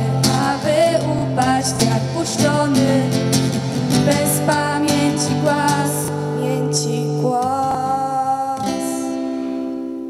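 Young female voices singing together into microphones over strummed acoustic guitar. About nine seconds in, the song closes on a long held final chord.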